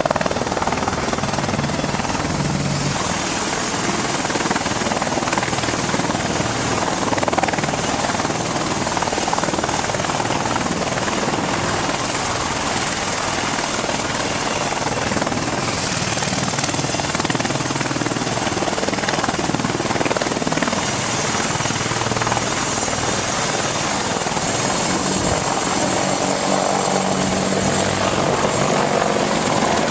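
AH-64 Apache attack helicopter's rotors and twin turboshaft engines running steadily at close range while it hovers low and lifts off.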